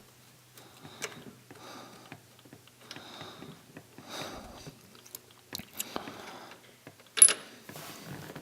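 Wrench work loosening a metal diesel fuel-line fitting: short scraping and clicking strokes about once a second, with one sharp metallic clink about seven seconds in.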